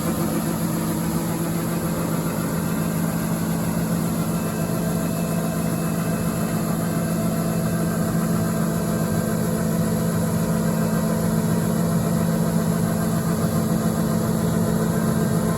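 John Deere 9400 combine running steadily while harvesting soybeans, a constant machine drone with a strong low hum.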